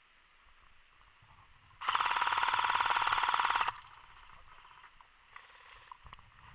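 A loud, buzzing, alarm-like tone that starts suddenly about two seconds in and cuts off just as suddenly after a little under two seconds.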